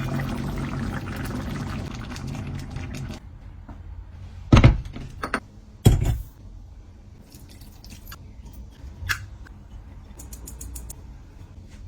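Kitchen cooking sounds: a steady rush of liquid for about three seconds, then two heavy thunks a little over a second apart, followed by a softer knock and a few light clicks.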